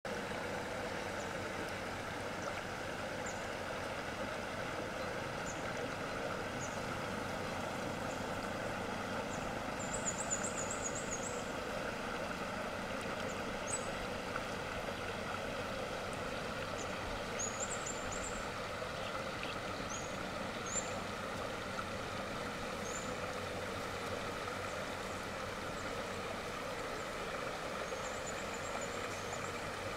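Steady rush of a shallow river flowing over riffles, with short high chirps now and then.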